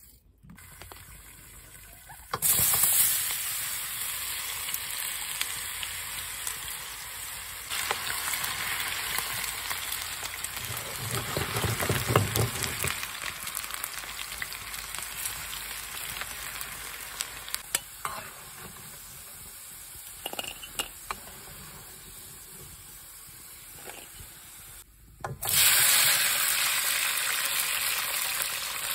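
Potato sticks frying in hot oil in a cast-iron skillet, a steady sizzle with occasional clinks and scrapes of a metal skimmer stirring them. Near the end the sizzle turns suddenly louder as sliced peppers fry.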